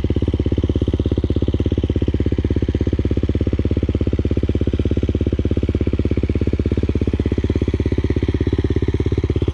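A 2019 KTM 450 EXC's single-cylinder four-stroke engine idling steadily, with an even pulse of about ten beats a second.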